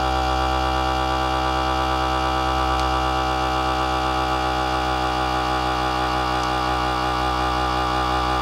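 A FoodSaver vacuum sealer's pump switches on abruptly and runs steadily, drawing the air out of a bag of chicken quarters in vacuum-and-seal mode.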